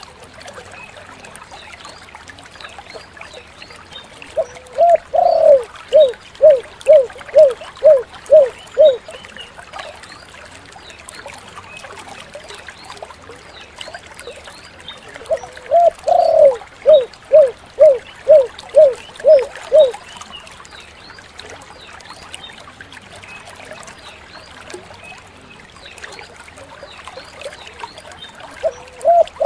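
Spotted dove (tekukur) cooing: two song phrases about ten seconds apart, each a drawn-out opening coo followed by a quick run of about seven short, even coos, with a third phrase starting near the end. A faint steady hiss with small high chirps runs underneath.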